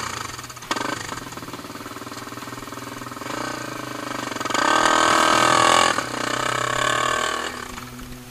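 Trail bike engine revving hard up a steep dirt hill climb. The revs rise from about three seconds in, are loudest in the middle, then fall away near the end.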